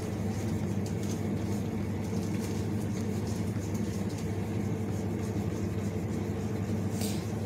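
Car engine idling: a steady low hum, with a short rustle near the end.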